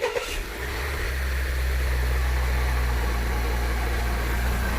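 Honda Accord 2.0T's turbocharged four-cylinder engine catching on start-up with a brief flare of revs, then settling within about a second into a steady idle. It runs with a newly fitted PRL high-volume intake, which makes it a lot louder.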